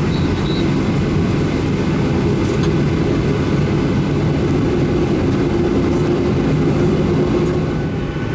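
Inside the cabin of a Boeing 737-800 taxiing on the ground: its CFM56 engines running at idle, a steady rumble with a low droning hum.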